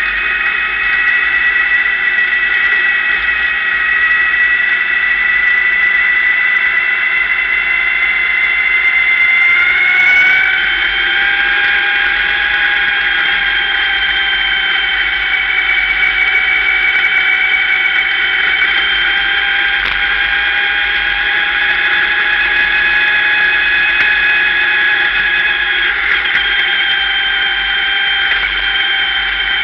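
Dirt-track sportsman race car's engine running steadily at low speed, heard from inside the cockpit as a steady high-pitched whine; its pitch shifts about ten seconds in.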